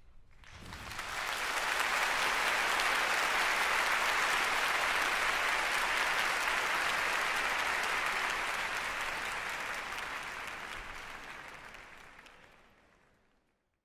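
A large audience applauding at the end of a concert band performance, swelling in over the first second or two, holding steady, then fading away near the end.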